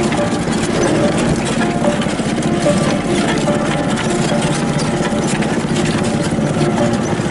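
Briggs & Stratton 144cc single-cylinder four-stroke engine of a homemade truck running steadily while driving.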